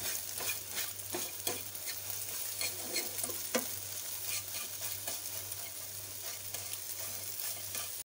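Scrambled eggs sizzling in oil in a frying pan while a fork breaks them into small pieces, with scattered scrapes and taps of the fork against the pan.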